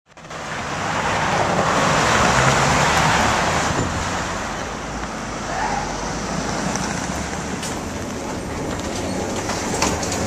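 Road traffic: the steady noise of cars passing on a busy city street, loudest in the first few seconds, with a few sharp clicks near the end.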